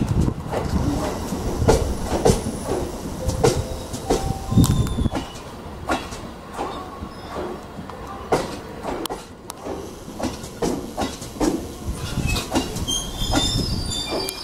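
JR Central 313 series electric train running over rail joints and points: a run of metallic wheel clacks that come further apart and grow quieter, with a few short wheel squeals.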